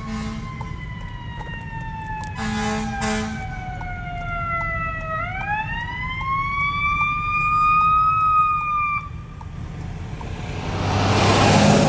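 Ambulance siren on a slow wail, falling in pitch for about five seconds, then rising and cutting off about nine seconds in, with short horn blasts over it at the start and again near three seconds. Then the engine and tyres of the Freightliner box ambulance swell as it drives past close by, the loudest part.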